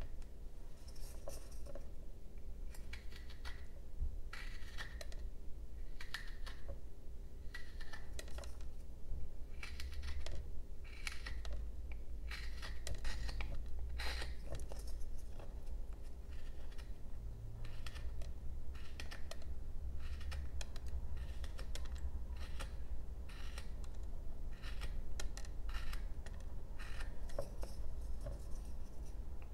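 Small carving gouge cutting basswood by hand: a string of short, crisp, irregular cutting strokes, with light clicks as the tool is handled.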